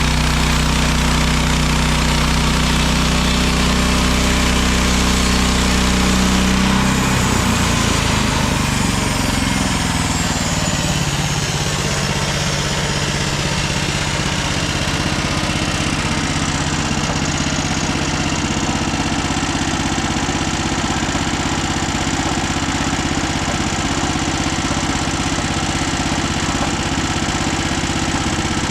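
Gas engine of a Mechmaxx SM32 portable bandsaw sawmill running steadily; about seven seconds in its note changes and settles at a different speed, while a high whine slowly falls over the next several seconds.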